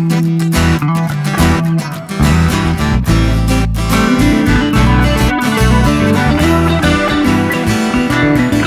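Background music: a strummed guitar track with a bass line.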